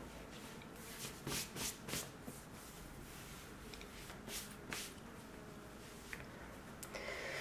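Faint rustling and rubbing of clothing as a vest top is rolled up and a leggings waistband is folded down, with a few soft brushing strokes, a cluster about a second in and two more past the four-second mark.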